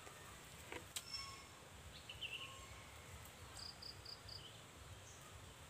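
Quiet outdoor ambience with faint wildlife calls: a sharp single click about a second in, a short warbling chirp a little after two seconds, and a quick run of four short high pips near the end.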